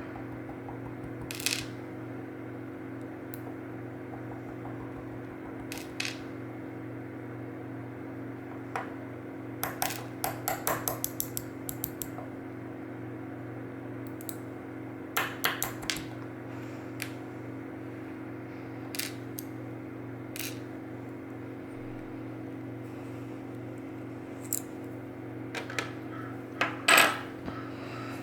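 Small metal parts of a disassembled Mul-T-Lock Interactive lock cylinder (pins, springs, wafers) and tools clinking against a hard surface: scattered light clicks, a quick run of about eight ticks near the middle, and a louder clink near the end, over a steady low hum.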